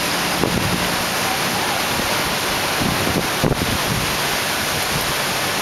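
Heavy rain pouring down in a steady, even hiss, with a few low gusts of wind buffeting the microphone.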